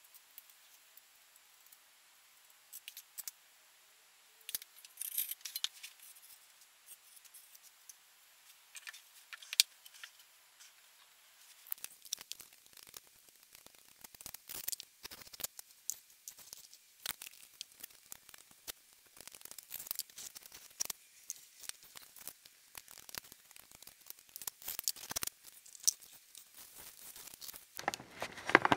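Putty knife scraping premixed tile adhesive out of a plastic tub and spreading it on the back of a tile strip: faint, scattered scrapes and clicks that become busier and more continuous about halfway through.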